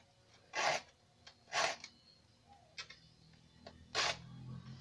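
A saw file rasping across the teeth of a crosscut handsaw to sharpen them, in short separate strokes. Two loud strokes come about a second apart in the first half and a third near the end, with fainter strokes between.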